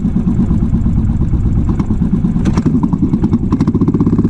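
Motorcycle engine running with a fast, even thumping beat, with a few sharp clicks midway.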